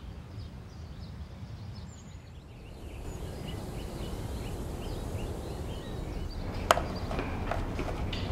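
Small birds chirping over a low steady hum of outdoor background. Near the end come a sharp tap and several lighter taps, chalk striking a blackboard as it writes.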